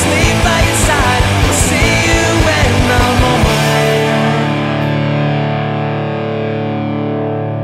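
Rock song with distorted electric guitar and a driving drum beat with cymbal crashes; about three and a half seconds in the drums stop and a held guitar chord rings on through effects.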